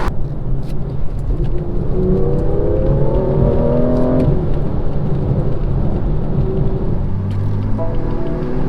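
BMW M140i's turbocharged straight-six, fitted with a modified exhaust back box, accelerating hard: its pitch rises, drops at a quick automatic upshift about four seconds in, then rises again near the end.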